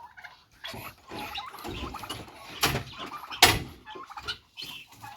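Poultry calling in the background, broken by two sharp bangs a little under a second apart, past the middle.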